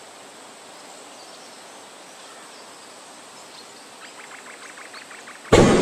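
Quiet open-air ambience with a steady faint hiss, a short run of faint rapid clicks about four seconds in, then a sudden loud burst of noise near the end that carries on.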